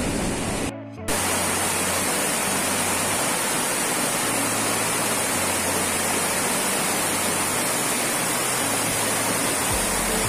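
Mountain stream cascading over rocks: a steady rush of water that cuts out briefly about a second in.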